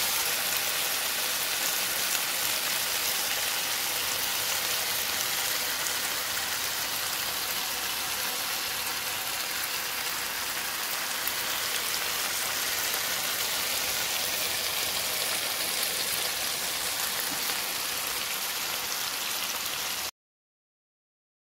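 Shrimp, okra and green onions sizzling steadily in a hot pan. The sizzle cuts off abruptly near the end.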